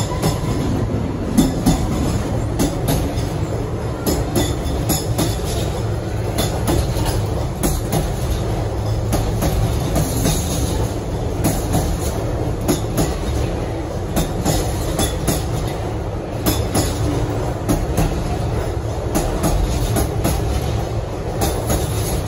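Container wagons of a freight train rolling past, a steady rumble with the wheels clicking and clattering on the rails.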